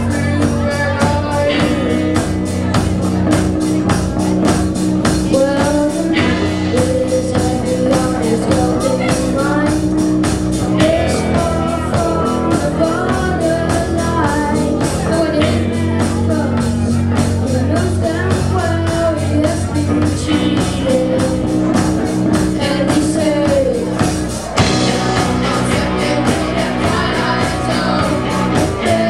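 Rock band playing live: electric guitars, bass and drum kit, with a wavering lead melody line over the top. The band drops out briefly near the end, then comes back in with a hit.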